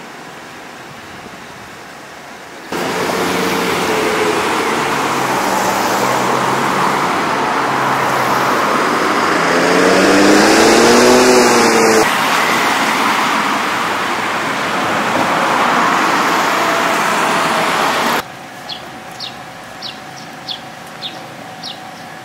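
Street traffic: cars passing, a steady loud rush that starts abruptly about three seconds in, with one car's engine note rising and falling about ten seconds in. Near the end it drops away to quieter outdoor ambience with a series of short high chirps.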